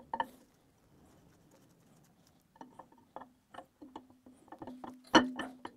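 Triumph TR4 steel camshaft being slid into the engine block, its lobes and journals knocking and clinking against the cam bearing bores. A couple of clicks come at the start, then after a short lull a run of irregular metallic knocks with a brief ringing under them from about two and a half seconds in, the loudest near the end.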